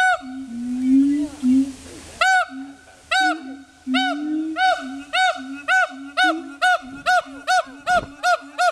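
Siamangs calling. A lower, wavering hoot comes first. From about two seconds in, a run of loud whooping notes begins, each rising and falling in pitch, speeding up from about one a second to about three a second, with the lower hoot carrying on beneath them.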